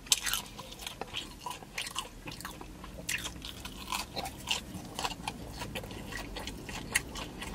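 A person biting and chewing sauce-coated chicken wings, with irregular crunches and clicks throughout.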